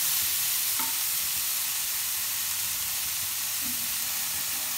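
Diced eggplant and onion sizzling steadily in hot oil as they are stir-fried in a pan with a wooden spatula.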